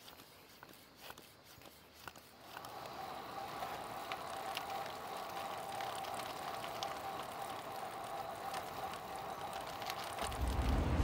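A road bike on Continental Ultra Sport III tyres rolling along a paved path: a steady rolling whir from the tyres and drivetrain, with scattered light ticks. It begins after about two seconds of faint clicks, and a loud low rumble sets in near the end.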